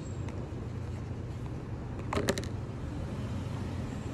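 Plastic food packaging being handled: a short burst of crinkles and clicks about two seconds in, over a steady low background rumble.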